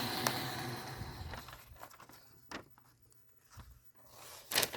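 Belt sharpener's motor and belt winding down to a stop over the first second and a half. A few faint, short papery rustles follow as a freshly stropped kitchen knife slices test paper.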